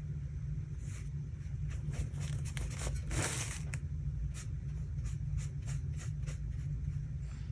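Paintbrush strokes on watercolor paper: a run of short brushing sounds, with one longer swish about three seconds in, over a steady low rumble.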